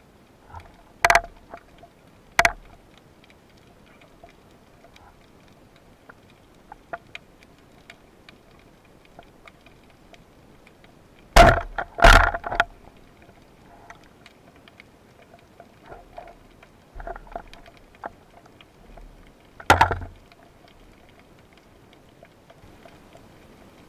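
Underwater, a band-powered speargun firing about eleven seconds in: two loud cracks in quick succession as the band releases and the shaft flies. Scattered sharp knocks come before and after, with a strong one near the end.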